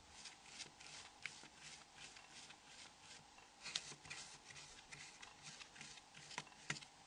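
Faint, irregular small clicks and taps of a Torx screwdriver working the screws out of a Nokia N80's frame, with a couple of sharper clicks near the middle and near the end.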